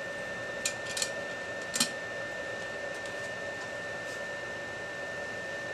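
BioLite CampStove's battery-powered fan running steadily with a thin high whine, forcing air into the burning wood to gasify it. Three sharp clicks come in the first two seconds.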